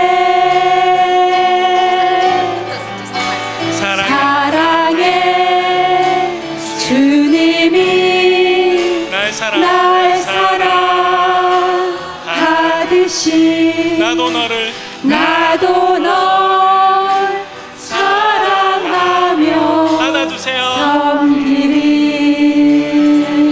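A church praise team of a man and three women singing a Korean worship song together into microphones, with long held notes and vibrato. Near the end they settle on one long sustained note.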